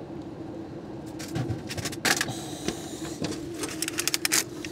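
Vending machine humming steadily while its pickup-bin flap and a clear plastic food tray click and rattle: one sharp clack about halfway, then a quick run of clicks near the end as the tray is pulled out through the flap.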